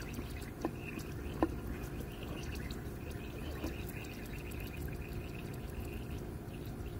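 Water spraying steadily from a handheld shower head fed by a pump-up plastic pressure sprayer tank. Two short squeaky blips come about a second in.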